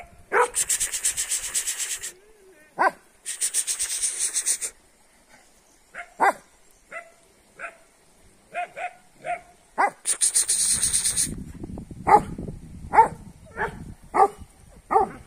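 Kangal dogs giving short, sharp yips and barks, scattered at first and then coming about once a second near the end. Three bursts of scratchy rustling fall between them.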